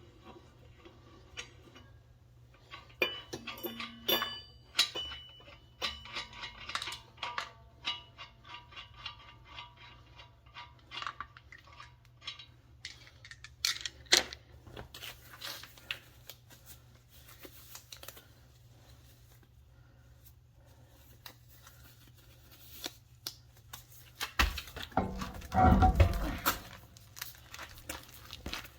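Small metal objects clinking and clattering in a run of short knocks, some ringing briefly, then fewer scattered clicks. Near the end comes a louder, low rumbling handling noise lasting a couple of seconds.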